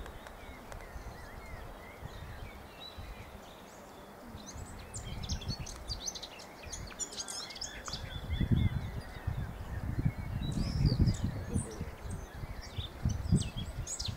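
Small birds chirping, many short quick high calls that come thickest in the second half, over a low rumbling noise that grows louder about halfway through.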